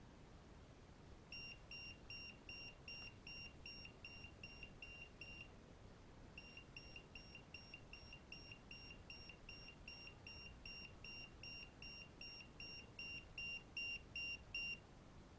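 Handheld AS1392 EMF tester's buzzer beeping in a rapid train of short high-pitched beeps, about three a second, with a brief pause about five seconds in. The beeps quicken for a few seconds after the pause, then slow and grow louder near the end: the meter's field alarm responding to a small magnet held near it.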